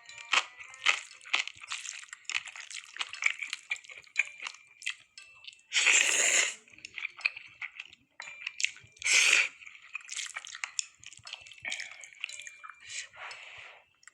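Kitchen food-preparation sounds: a run of small clicks, taps and squishes from handling food and utensils, broken twice by a short rush of noise.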